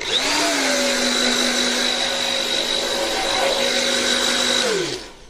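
Hair dryer blowing: a steady whir with a high whine over the rush of air, switched on at the start and winding down in pitch as it is switched off near the end.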